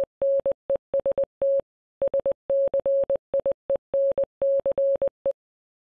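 A single steady electronic beep tone keyed in Morse code, short and long beeps that spell out "HONEST SCIENCE". The beeps stop a little over five seconds in.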